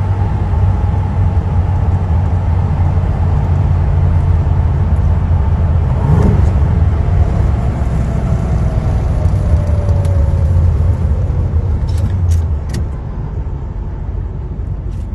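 1980 Chevrolet Corvette's V8 droning steadily at speed, heard from inside the cabin with wind and road noise. About twelve seconds in the drone drops and the car gets quieter, with a few light clicks.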